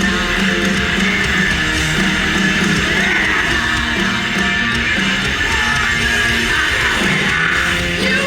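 Punk rock band playing live at full volume, with loud distorted electric guitars and drums and shouted vocals, recorded from the crowd.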